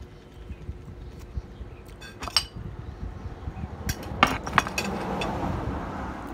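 Metal spoon clinking against a plate as the plate is picked up and handled: a handful of sharp clinks starting about two seconds in, the loudest near the middle, with rubbing and handling noise.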